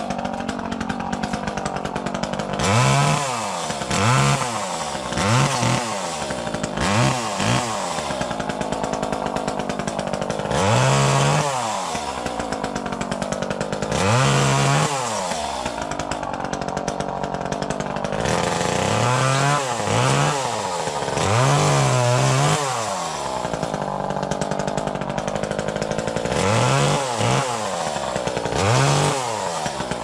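Gas chainsaw's two-stroke engine running at idle and revved up about a dozen times in short bursts, each rev rising and falling back to idle, as it cuts.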